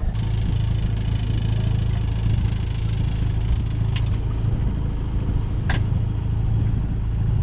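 Sailing yacht's engine running steadily under way, with a light rattle that stops about halfway through, followed by two short clicks.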